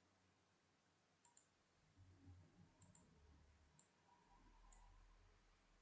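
Near silence broken by a few faint computer mouse clicks, spread out over the few seconds.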